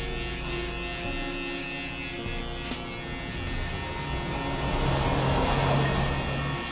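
Electric hair clippers buzzing steadily as they cut short hair at the back and sides of a head. About four seconds in, the buzz turns louder and rougher for a couple of seconds.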